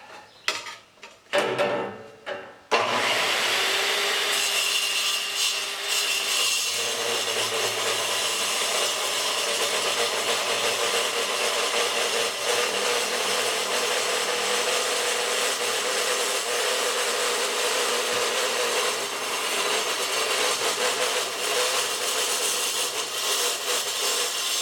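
Milwaukee 6370-21 8-inch metal-cutting circular saw cutting through 1-inch steel plate, a steady grinding cut that starts abruptly about three seconds in, after a few faint knocks.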